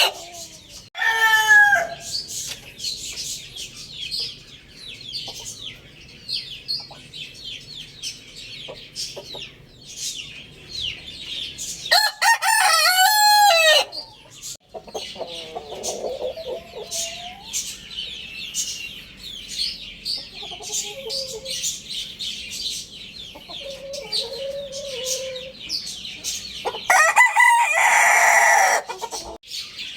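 Young rooster crowing three times: a short crow about a second in, a long one near the middle and another near the end, with soft low clucks between the crows. Faint high chirps run underneath.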